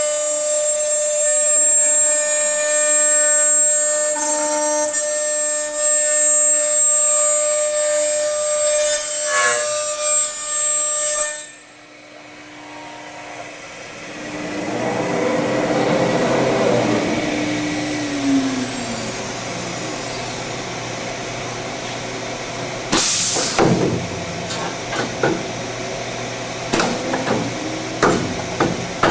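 Tekna TK446 CNC aluminium machining center running, its spindle giving a steady high whine that cuts off suddenly about eleven seconds in. A falling whine follows as the machine winds down to a steady hum. Near the end come a short loud burst and several sharp clicks.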